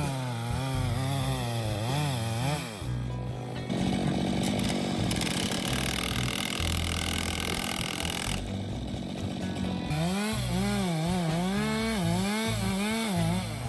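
Stihl MS 462 C-M two-stroke chainsaw revving up and down repeatedly, running more steadily through the middle, over background music.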